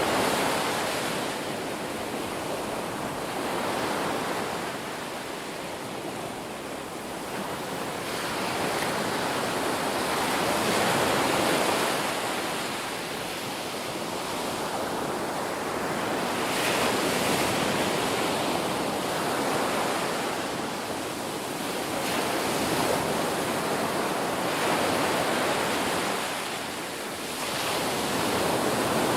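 Ocean waves breaking on a shore: a continuous rushing surf that swells and ebbs every few seconds as each wave comes in and washes back.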